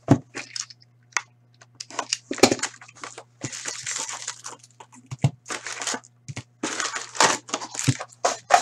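Opening a sealed Upper Deck hockey card box by hand: irregular crinkling and tearing of its plastic wrap and cardboard, with sharp cracks and clicks. The foil card packs rustle as they are pulled out and stacked.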